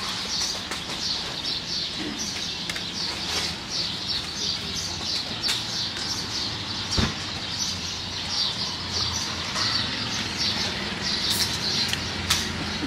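Many small birds chirping constantly in a dense twittering chorus, with a few sharp clicks and one knock about seven seconds in.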